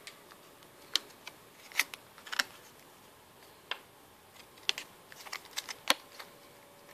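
Clear plastic sleeve around a silver bar crinkling and clicking as it is handled in the fingers: a scattered string of short, sharp clicks, about eight of them, with quiet gaps between.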